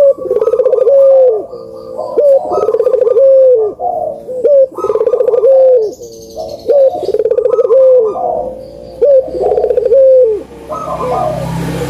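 Puter (Barbary) doves cooing again and again, phrases overlapping. Each coo is a rolling burr that ends in a clear note falling in pitch. It is a trigger call meant to set quiet puter doves calling. A low hum and hiss come in near the end.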